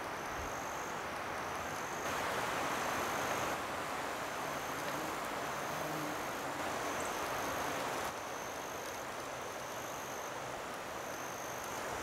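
Wind rushing steadily through trees and leaves, growing louder about two seconds in and dropping back about eight seconds in, with faint high-pitched trills repeating in the background.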